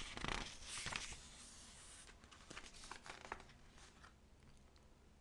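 Faint rustling and crinkling of paper for about two seconds, then a few soft clicks.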